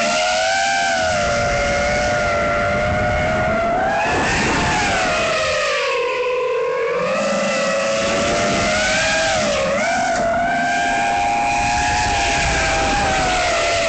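SpeedyBee Mario 5 XH FPV quadcopter's motors and propellers whining, the pitch rising and falling with throttle, sinking lowest about six seconds in and dipping briefly near ten seconds, over a steady rush of air noise.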